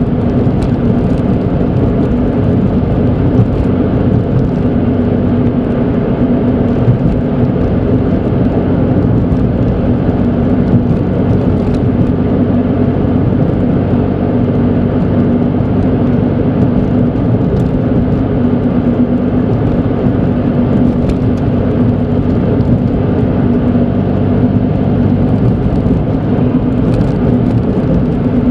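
Steady in-cabin driving noise of a Suzuki Alto Turbo RS (HA36S) cruising: the hum of its small turbocharged three-cylinder engine mixed with tyre and road noise, even in level throughout.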